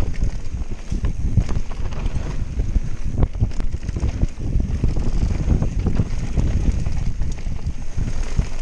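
Wind buffeting the action camera's microphone over the rumble of a Canyon Spectral AL 7.0 EX mountain bike's tyres on a bumpy dirt trail at speed, with frequent quick rattles and knocks of the bike over the rough ground.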